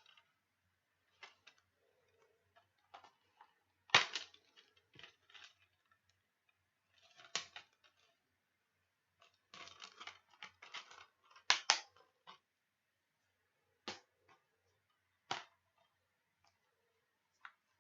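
DVD cases and their slipcovers being handled: scattered plastic clicks, taps and rustles. The loudest click comes about four seconds in, and a busy run of rustling and clicking comes around ten to twelve seconds.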